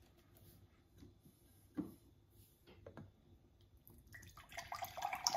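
A few faint knocks, then, about four seconds in, coconut water starting to pour from a carton into a drinking glass, the splashing growing louder towards the end.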